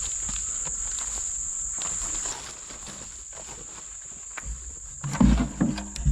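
A steady, high insect buzz from the woods, a little louder for the first two seconds. Near the end come a few low thumps and knocks.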